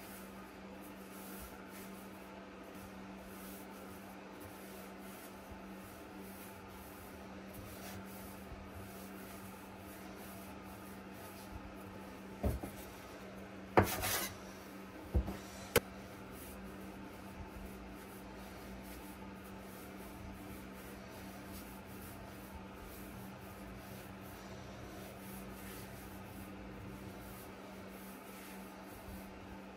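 Hands rolling soft potato gnocchi dough into ropes on a floured stainless-steel counter: a faint, steady rubbing over a low hum. About halfway through, a metal bench scraper strikes the steel counter a few times in quick succession, sharp knocks that are the loudest sounds.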